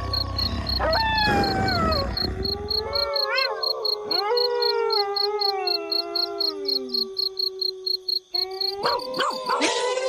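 A pack of wolves howling in chorus: several long howls overlap, each gliding slowly down in pitch. Near the end come shorter calls that swing quickly up and down in pitch.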